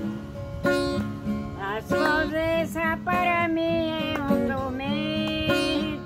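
Acoustic guitar strummed in a steady rhythm, accompanying a voice singing a slow, gliding melody that ends on a long held note near the end.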